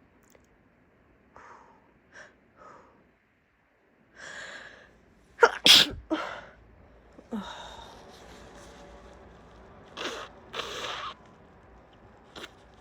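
A woman with a head cold sneezing harshly. A few short catching breaths and a long drawn-in breath lead to one loud, explosive sneeze about five and a half seconds in. Breathy gasps and exhales follow near the end.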